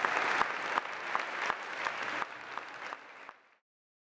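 Large theatre audience applauding, the applause fading out to silence about three and a half seconds in.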